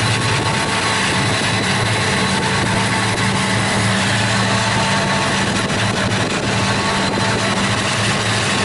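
CN diesel-electric freight locomotive running, a loud steady engine drone with a constant hum from the train under it.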